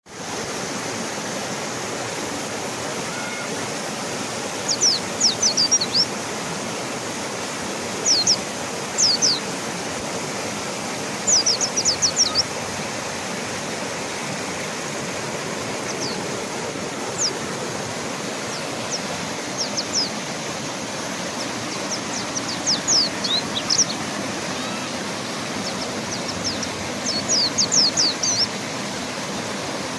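Steady rush of a fast-flowing river, with a mountain white-eye (pleci gunung) calling over it in clusters of short, high chirps every few seconds.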